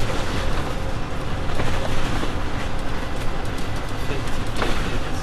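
Steady engine and road rumble inside a moving double-decker bus, with a few faint rattles from the body.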